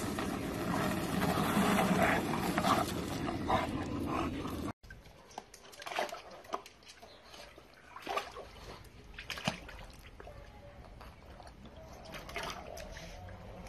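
A dog sloshing and pawing in a shallow plastic tub of water, with scattered small splashes. This follows a loud, rough noise that cuts off abruptly about five seconds in.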